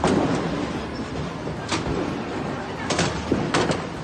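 Bowling alley din: balls rumbling along the wooden lanes, with several sharp knocks and clatters of balls and pins, about two and three seconds in.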